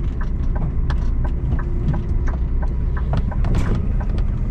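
A heavy truck's diesel engine running steadily while on the move, with many light irregular clicks and rattles over the low rumble.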